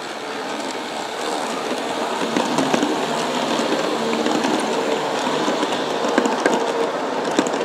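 G-scale Aristo-Craft E9 diesel locomotives and passenger cars with three-axle trucks rolling past on a curved track, a steady hum of motors and gears under the rumble of the wheels, with scattered clicks as the wheels cross the rails. It grows louder over the first couple of seconds as the train draws near.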